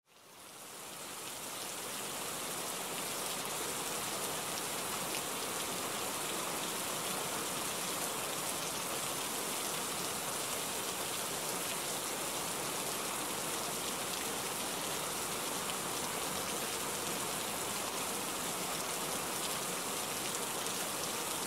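Steady rain falling, a recorded rain ambience laid over the footage; it fades in over the first couple of seconds, then holds as an even hiss.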